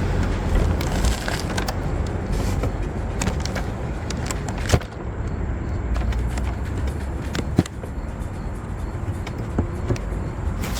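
Scattered sharp clicks and knocks of the touchscreen unit and plastic dash trim being handled and pressed into place, the clearest two about halfway through, over a steady low rumble.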